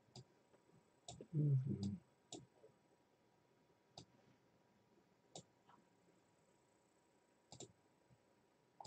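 About seven sparse single clicks of a computer mouse, spread a second or more apart, with a brief low mumble of a voice about a second and a half in.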